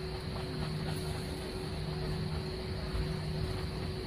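Cabin noise of an Airbus A320-family airliner taxiing: the jet engines running at low taxi power as a steady hum with a steady mid-pitched tone, over a low rumble from the ground roll.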